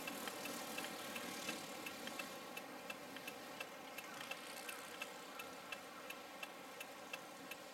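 Snow-sweeper tram's rotating brooms brushing snow off the rails, fading out as it moves away. A faint steady hum remains, with a regular light ticking about three times a second.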